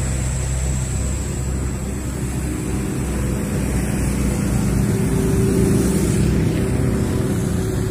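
Engines of motorcycles and a small pickup truck on a nearby road: a low, steady engine hum, with an engine note that rises a little in the second half.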